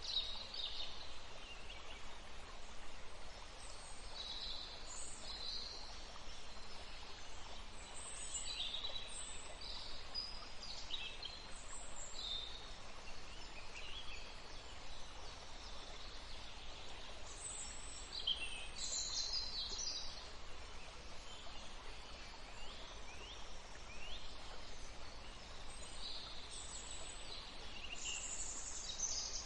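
Several birds singing and calling, with short high chirps and quick glides coming every second or so over a steady background hiss.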